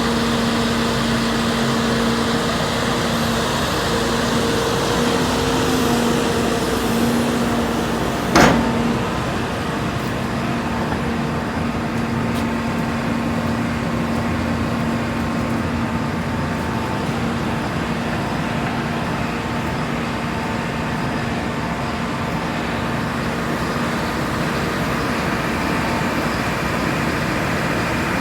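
A JCB 220XLC tracked excavator's diesel engine running steadily, with one sharp bang about 8 seconds in, the loudest moment.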